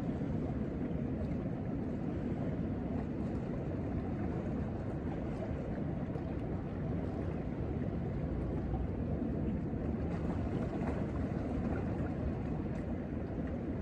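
Steady low rumble of wind buffeting the microphone, with a faint wash of water beneath it.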